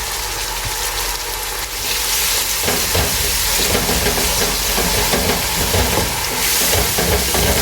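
Fried onions and ketchup sizzling in hot oil in a pan: a steady frying hiss that grows a little louder about two seconds in.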